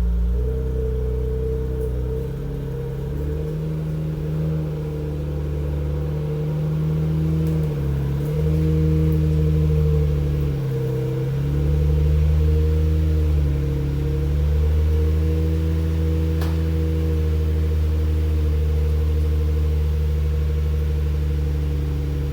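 Nissan Skyline R32 GT-R's RB26DETT twin-turbo straight-six idling steadily, its pitch dipping and recovering slightly a few times.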